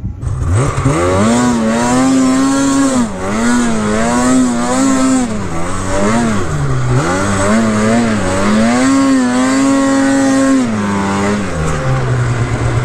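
Snowmobile engine revving and easing off over and over as the throttle is worked. It rises sharply about half a second in and drops to a lower pitch near the end.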